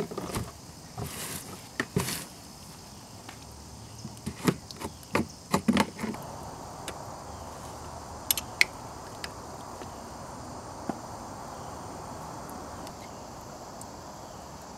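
Sharp clicks and knocks of a screwdriver working the drain screw on a sterndrive lower unit and of a plastic drain pan being handled, then from about six seconds a steady trickle of gear oil running out of the gear case into the pan, as the gear fluid is drained for a change.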